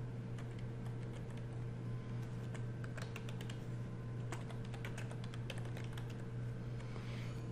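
Typing on a computer keyboard: an irregular run of keystroke clicks as a short line of text is entered, stopping about a second before the end. A steady low hum runs underneath.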